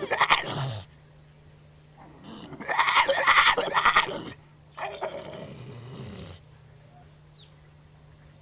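Pit bull-type dog making strange raspy vocal noises in three bursts: a short one that drops in pitch at the start, a louder one of about two seconds a couple of seconds in, and a quieter one right after.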